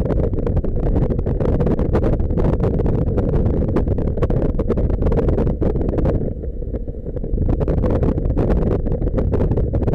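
Motorcycle riding along at speed, heard through a bike-mounted camera's microphone: wind rushing and buffeting over the mic, with engine and road noise underneath. It eases for about a second a little past the middle.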